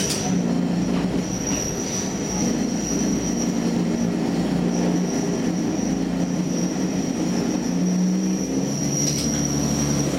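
Diesel railcar standing still with its engine idling, heard from inside the driver's cab: a steady low hum with a thin high whine above it. There is a click at the start and another about nine seconds in.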